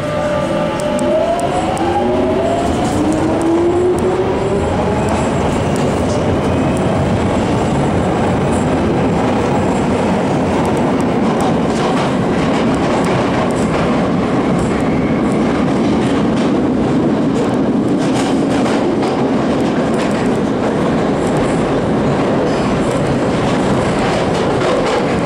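London Underground Jubilee line train (1996 Tube Stock) pulling away from a station: its traction motors whine in a few parallel tones rising in pitch over the first few seconds as it accelerates. It then runs at speed through the tunnel with a loud, steady rumble and rattle of wheels and carriage.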